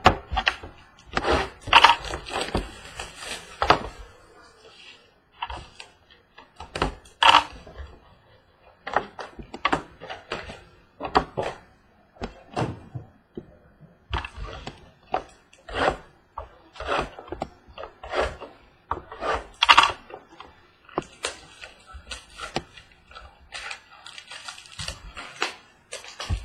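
Irregular crinkling, tearing and rustling of plastic wrapping and cardboard as a sealed box of trading cards is unwrapped and opened, with occasional light knocks.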